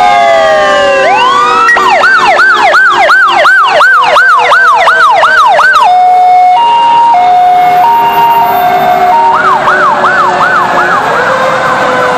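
Several fire engine sirens sounding at once. A siren winds down at the start, then an electronic yelp cycles about two to three times a second, giving way to a two-tone hi-lo alternating roughly every half second. The yelp returns, and a siren rises in pitch near the end.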